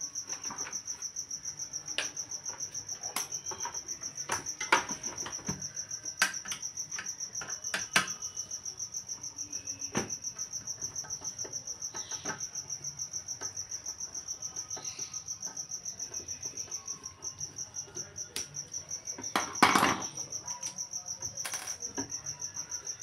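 Scattered plastic clicks and knocks from handling and fitting a water purifier's UV lamp and its plastic fittings, with a louder rustle late on. Behind them runs a continuous high chirp, pulsing rapidly.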